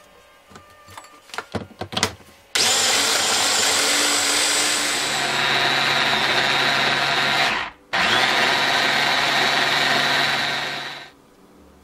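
bamix SliceSy electric mini chopper grinding beef and vegetables: a few light clicks and knocks as it is handled, then the motor runs with a steady high whine for about five seconds, stops for a moment, and runs again for about three seconds before winding down.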